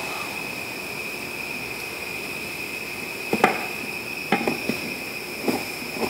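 Screwdriver and small metal parts clicking and tapping against a steel electrical outlet box as it is put back together: about five short, sharp clicks scattered through the second half. A steady high-pitched whine runs underneath.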